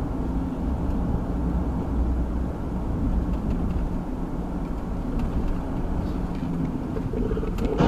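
Car driving at about 35 mph, heard from inside the cabin through a dash cam: a steady road and engine rumble. A sharp click comes near the end.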